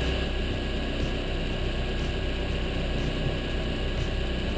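Boat engine running steadily, a low even drone with a hiss of wind and water over it, heard from on board while the boat trolls slowly with a rod out.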